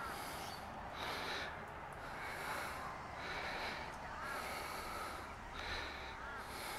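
Footsteps crunching on dry leaves scattered over concrete steps as someone walks down them, about one step a second.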